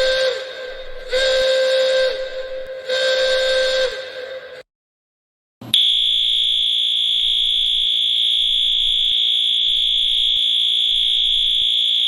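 Emergency Alert System alarm for a tornado warning: three short bursts of header data about two seconds apart, then after a brief pause a steady high-pitched alert tone held for about six seconds that cuts off suddenly.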